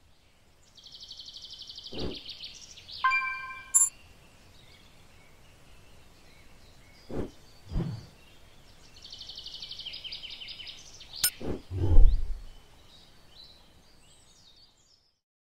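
Title-sequence sound effects: a fast, high chirping trill twice (near the start and again around ten seconds in), a short bright chime about three seconds in, and several deep, dull hits scattered through, one of them with a sharp click.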